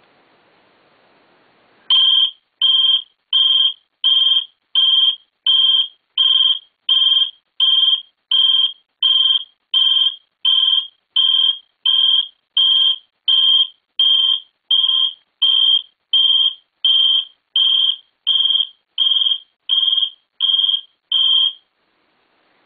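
An electronic alarm beeping: a long run of short, shrill, evenly spaced beeps, about three every two seconds. It starts about two seconds in and stops shortly before the end.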